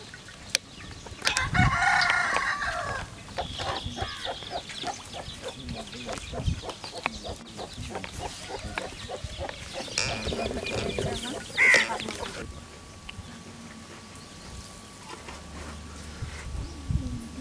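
Chickens: a rooster crowing and hens clucking, with loud calls about a second in and again around ten seconds in.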